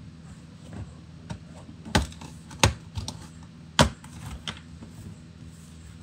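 Sharp plastic clicks from a Dell Inspiron 15-5570 laptop's bottom cover as it is pressed and pried along its edge to release the snap clips. The three loudest clicks come about two, two and a half, and four seconds in, with a few softer ones between, over a steady low hum.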